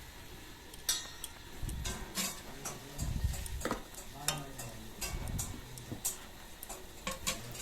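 A cooking utensil stirring in a pan, knocking and scraping against it with a scatter of irregular clicks, as fried egg pieces are stirred into tomato gravy.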